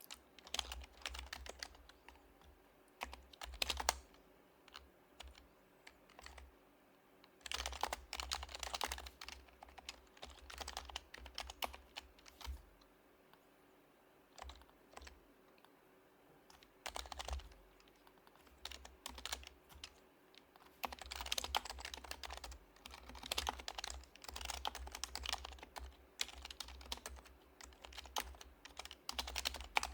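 Typing on an HHKB Professional HYBRID Type-S keyboard, whose silenced Topre switches give soft, muted key clicks. It comes in bursts of rapid keystrokes broken by short pauses, with the longest lulls about five and fifteen seconds in, and near-continuous typing through the last third.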